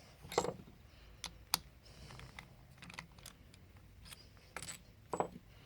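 Scattered sharp metallic clicks and knocks from a hand tool working the bolts out of a high-pressure misting pump's head, with the loudest strikes about half a second in and about five seconds in.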